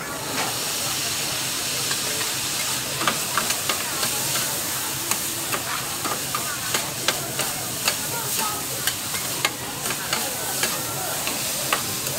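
Noodles and vegetables sizzling on a hot flat-top griddle. The sizzling grows louder just after the start as sauce is ladled on, with frequent sharp clicks and scrapes of metal spatulas against the plate as the noodles are tossed.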